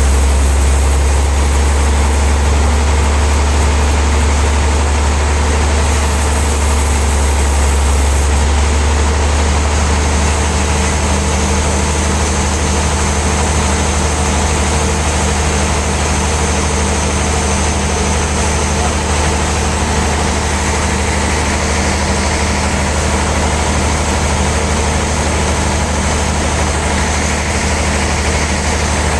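Sawmill machinery running steadily with a loud, unchanging low drone.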